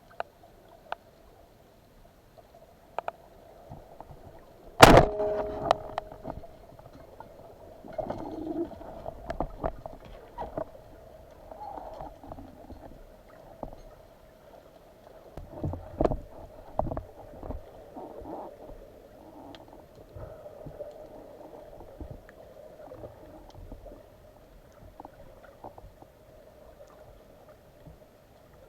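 Underwater sound on a breath-hold spearfishing dive: a steady hum with scattered clicks and knocks, and one loud sharp crack about five seconds in that rings briefly.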